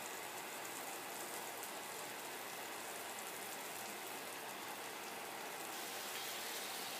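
Lamb chops sizzling steadily in hot olive oil in a cast iron skillet, a continuous crackling hiss. The sizzle grows slightly about six seconds in as a second chop is laid into the pan.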